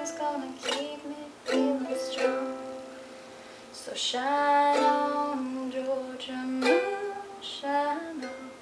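Ukulele strummed chords at an uneven pace, each chord left to ring, played as plain chord changes without a set strumming pattern; the playing fades out near the end.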